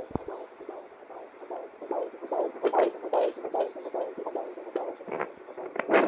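Heartbeat sounds: a run of quick, uneven thumps, about three a second.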